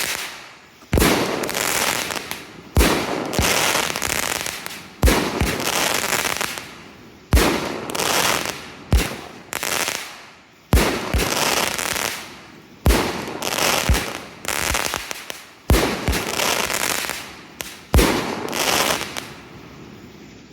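Sunbrand 'Big Party' 12-shot firework cake firing its shots one after another, about one every one to two seconds. Each shot is a sharp bang followed by a long crackling tail that fades, and the last tail dies away near the end.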